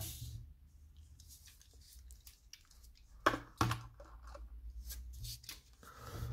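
Handling sounds of small die-cast toy cars being picked up and set down on a textured rubber mat: scattered light clicks and scrapes, with two sharper clicks a little after three seconds in.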